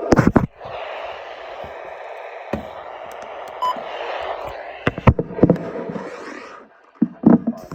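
Radio static: a steady hiss with several sharp, loud clicks and crackles near the start, about five seconds in and near the end, while the broadcast voice is missing.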